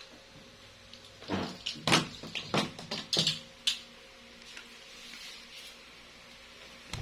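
A quick run of about a dozen sharp clicks and knocks over roughly two and a half seconds, like something being handled or a latch or door working, over a faint steady background.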